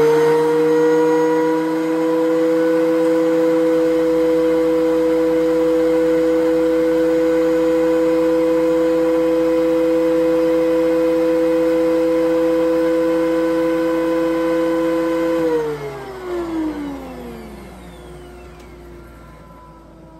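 Benchtop thickness planer's motor spinning up with a rising whine, then running at a steady pitch with no board going through. About fifteen seconds in it is switched off and winds down in a falling whine.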